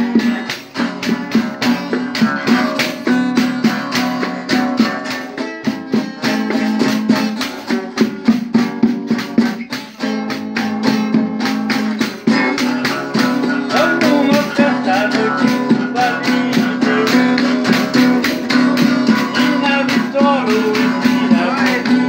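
Nylon-string classical guitar strummed in a steady rhythm, with a tambourine jingling along.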